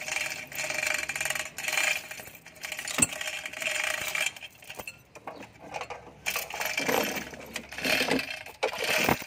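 A steel lifting chain rattles and clinks against a truck's bare engine block and a steel plate, with one sharp metallic clink about three seconds in.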